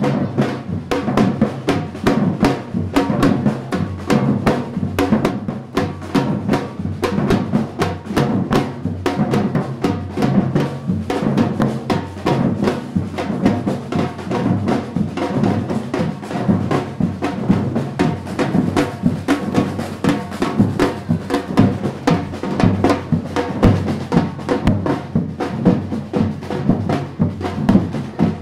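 A marching percussion group drums a fast, steady rhythm on shoulder-slung drums played with sticks, with no pause.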